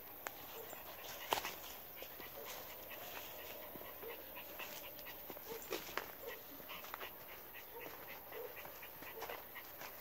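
A dog panting and whimpering with short, faint whines. Scattered crackles of twigs and dry leaves are heard through it, the loudest a sharp snap just over a second in.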